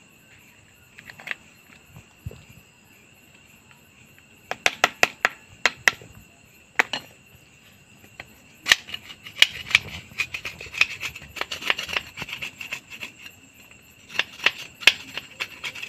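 Metal tool scraping and tapping on the perforated baffle tube of a TVS XL Super's two-stroke exhaust muffler, chipping out the carbon that has clogged its holes. The clicks and scrapes are sparse at first and come in quick runs from about four seconds in.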